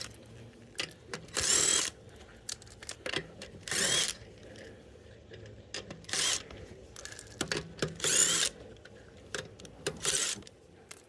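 Cordless impact gun spinning already-loosened lug nuts off a wheel in short bursts, about five of them roughly two seconds apart, with light metallic clinks of nuts and the socket between bursts.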